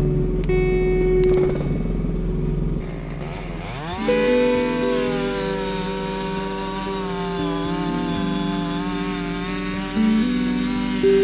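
Small engine of an AGT QK16R mini excavator revving up about four seconds in, then running at high throttle with a wavering pitch. Background music plays under it.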